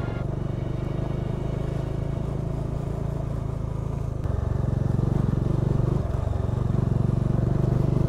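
Motorcycle engine running at low road speed, heard from the rider's seat, with a steady fast pulsing hum that gets a little louder about halfway through as the throttle opens.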